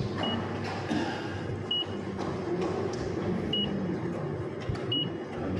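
Touchscreen key-press beeps of a JR East ticket vending machine: four short, identical high beeps, one for each button tapped, spaced irregularly about one to two seconds apart, over steady background noise.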